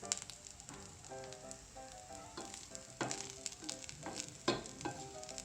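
Jeera rice in ghee sizzling and crackling lightly in the pan as coriander is stirred in, with soft instrumental background music playing a melody.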